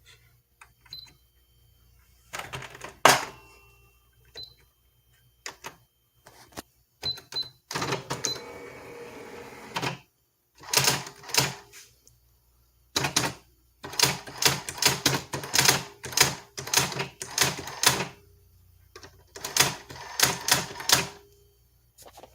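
Brother GX-6750 electronic daisy-wheel typewriter printing: sharp strikes come in quick runs, densest in the second half. About a third of the way in, its carriage motor whirs for roughly two seconds. A few short high beeps come from the machine early on.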